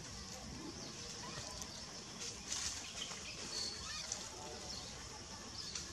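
A few faint, short animal calls, squeaks and chirps, scattered over a steady background hiss.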